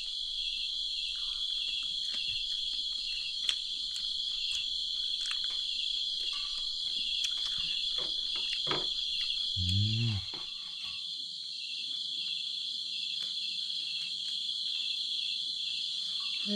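Night insects chirring in a steady, high, continuous trill with a faint regular pulse, with small clicks from handling food on the tray and a brief vocal sound about ten seconds in.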